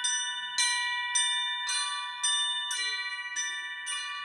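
A set of small church bells rung by cords pulled on their clappers, struck about twice a second in a steady pattern. Each strike leaves several tones ringing on, so the bells overlap into a continuous chime.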